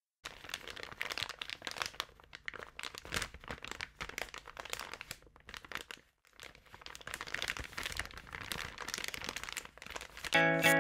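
Dense underwater crackling and clicking, in uneven clusters with a brief pause about six seconds in. Near the end, music with steady sustained notes and a regular pulse comes in.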